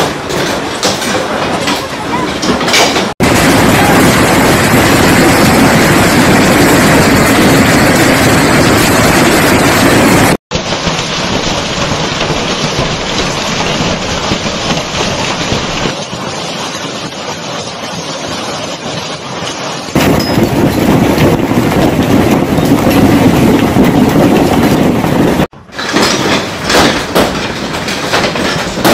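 Loud, steady storm noise, a dense roar of wind, rain or pelting hail, in several clips that change abruptly every few seconds. The first few seconds carry a rapid clatter of many small impacts.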